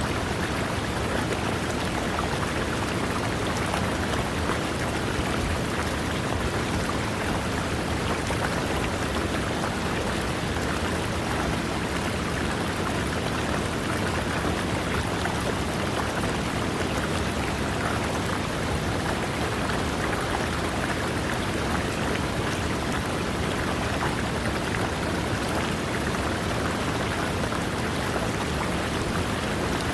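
River water running over rocks, a steady, unchanging rush of splashing water.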